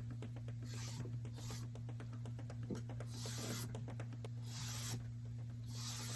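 A cloth French-polishing pad rubbing shellac varnish onto a violin's wooden back in repeated swishing strokes, about one a second, over a steady low hum.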